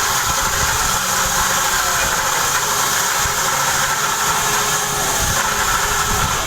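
A motor-driven machine running steadily, with a loud, even hiss over a low rumble.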